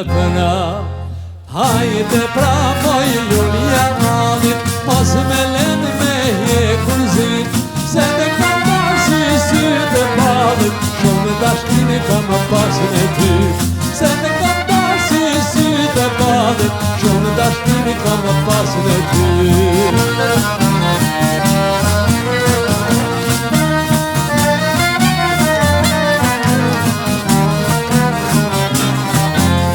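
Lively Albanian folk dance music played by an ensemble, with a fast, steady beat and melody lines over it; it comes in at full strength after a brief dip about a second and a half in.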